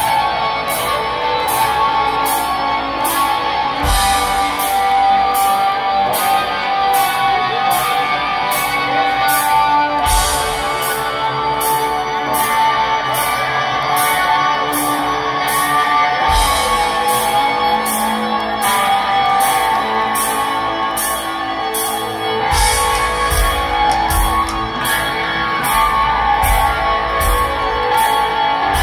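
Live rock band playing loud, with electric guitars and drums keeping a steady hi-hat beat, heard from the crowd.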